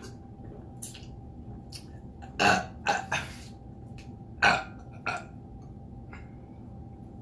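A woman burping loudly twice, about two seconds apart, each burp followed by a shorter, quieter one.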